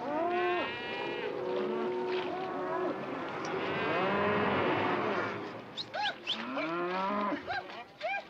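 Sale-yard livestock calling, many animals at once in overlapping, pitch-sliding calls, with a thick chorus in the middle and shorter, higher calls near the end.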